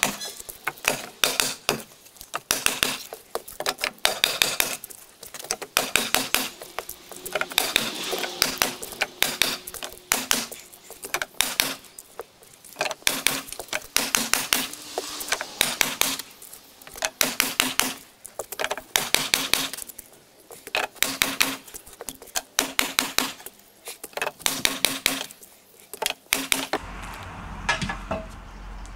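Bursts of rapid, sharp clicking and clattering from hand-tool work at the joint of a timber post, a burst every second or two. The clicking stops near the end, leaving a low steady hum.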